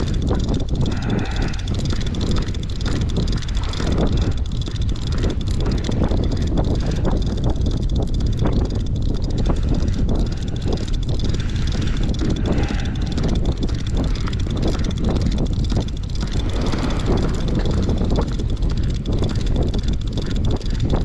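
Steady low rumble of a fishing boat's engine with wind on deck, broken by short knocks and faint voices now and then.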